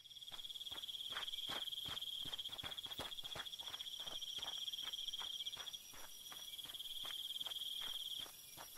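Night ambience of crickets chirping in a steady, fast-pulsing trill that dips twice, with soft ticks about three a second underneath.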